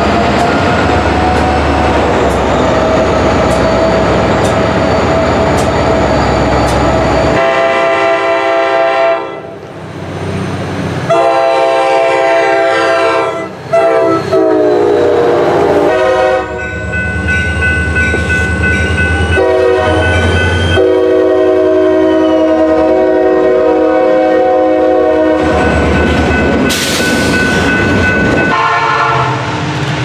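EMD diesel locomotives passing with engines running and wheels rolling on the rails. After a cut, a locomotive's multi-chime air horn sounds several long blasts; in one its pitch drops as the locomotive goes by.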